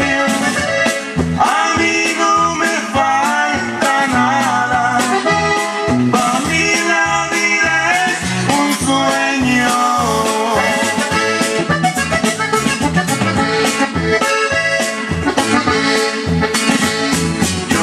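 Loud Latin dance music led by accordion over a steady bass beat, played through a DJ sound system.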